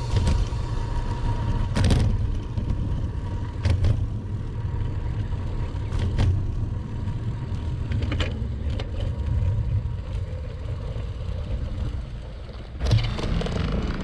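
Wind rumble and road noise from a bicycle on the move, picked up by a camera mounted on the bike, with sharp clicks every few seconds; the loudest click comes near the end.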